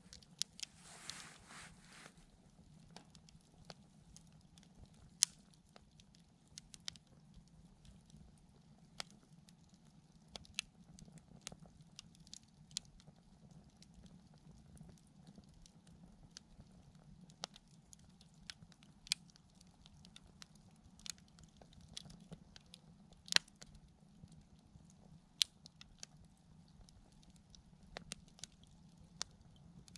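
Wood campfire crackling, with irregular sharp pops and snaps scattered throughout, some much louder than the rest. There is a brief hiss near the start.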